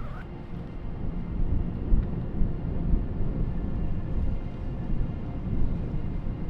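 Wind buffeting the microphone: a low, uneven rumble that rises and falls in gusts.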